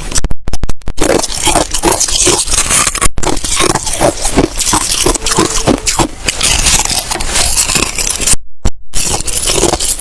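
Ice being bitten and chewed close to the microphone: loud, dense crunching, cut by short dead-silent breaks just under a second in, at about three seconds and at about eight and a half seconds.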